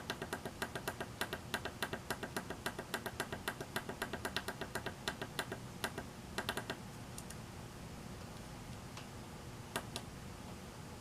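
Small tactile pushbutton (switch S1 on the oscilloscope clock kit's board) clicking under rapid repeated presses, about five clicks a second for nearly seven seconds, then two single clicks near the end: each press steps the clock's minute value up in time-set mode.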